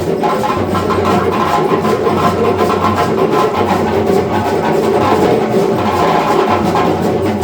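An ensemble of African hand drums playing together in a dense, continuous rhythm.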